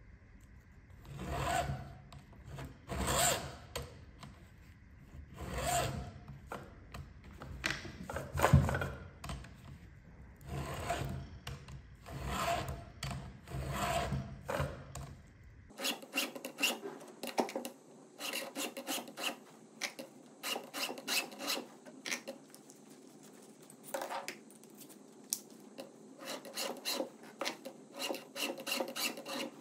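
A round file in a Stihl file guide rasping across the cutter teeth of a Stihl chainsaw chain during sharpening. The strokes are slow and separate for the first half, then shorter and quicker after about halfway.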